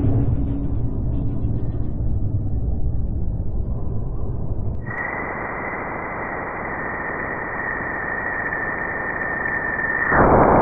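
Spacecraft plasma-wave recordings converted into audible sound, played as two pieces: first a dense low rumbling noise, then, after a sudden change about five seconds in, a hiss with a steady high tone drifting slightly down, which cuts off shortly before the end.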